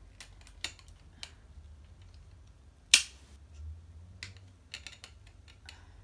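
Plastic clicks and taps from a camera tripod being handled while a part is fitted onto it, with one loud sharp snap about three seconds in.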